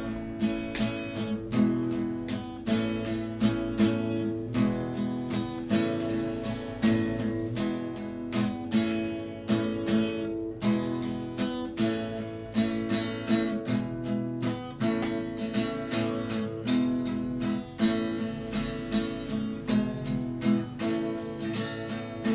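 Music: a guitar strumming chords in a steady rhythm, each stroke ringing on.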